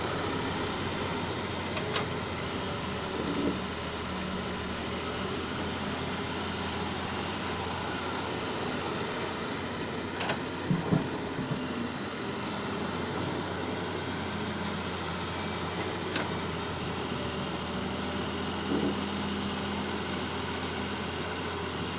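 Excavator's diesel engine running steadily, with a few short knocks, the loudest about halfway through.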